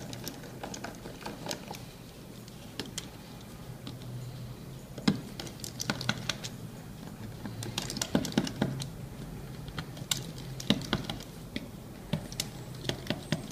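Irregular small clicks and taps of a precision screwdriver and fingers on a BlackBerry Z10's frame as its tiny screws are taken out.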